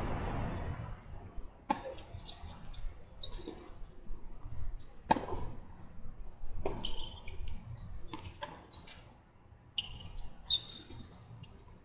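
Tennis balls knocking and bouncing on a hard court: a handful of separate sharp knocks a second or more apart, the loudest about five seconds in, after a brief rush of noise at the very start.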